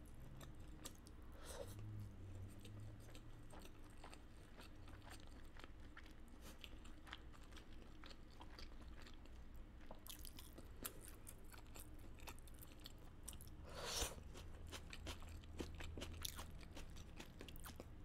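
A person chewing food close to the microphone: faint, repeated small crunches and mouth clicks, with a few louder clicks about ten and fourteen seconds in.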